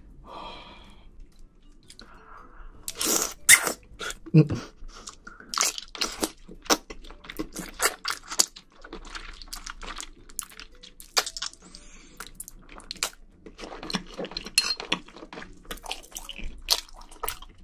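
Close-miked eating of thick Chinese glass noodles in sauce: slurping them in, then chewing with many wet mouth smacks and clicks.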